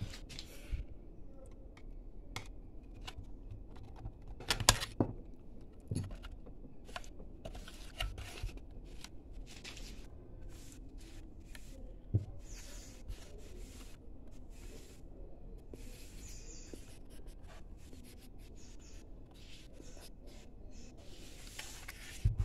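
A hobby knife scraping and prying at the plastic casing and metal grille of a small Bluetooth speaker, with irregular plastic clicks and scrapes as the parts are worked apart and handled. A louder clatter comes about five seconds in, and single sharp knocks about twelve seconds in and near the end.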